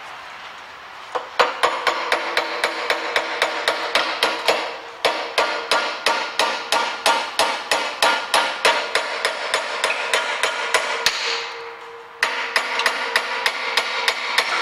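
A small steel hammer tapping rapidly at a gear on a shaft from a Hobart A200 mixer, several sharp ringing metal-on-metal strikes a second. The tapping starts about a second in, stops for about a second near the end, then starts again.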